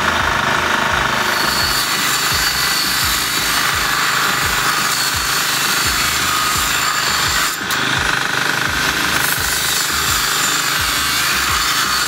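Angle grinder with a cut-off disc cutting through a steel bar: a steady high grinding whine that dips briefly about two-thirds of the way through. Under it, a portable generator's engine runs with an even low thudding.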